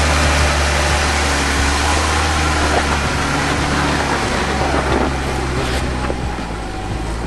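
Off-road 4x4 truck engine running at low speed while crawling over rock ledges, with a steady low hum that eases off about five seconds in.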